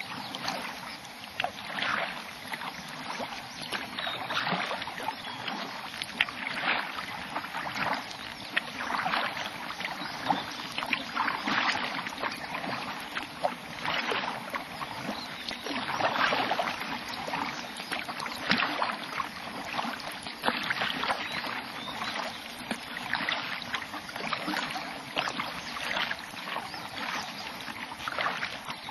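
Kayak paddle strokes dipping and pulling through calm water, a swell of splashing about every two seconds.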